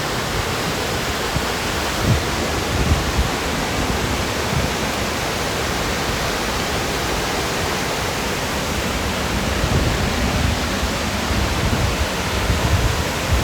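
Waterfall rushing steadily in a constant, full hiss, with irregular low bumps on the microphone.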